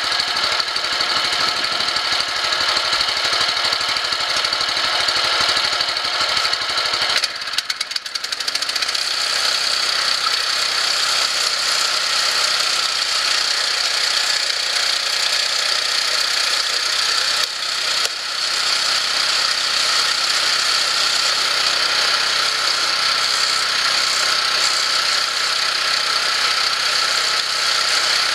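Small engine driving a screw-type cone log splitter, running steadily. Its note dips about seven seconds in and settles lower, with another brief dip near eighteen seconds, as the spinning cone takes load from the wood being split.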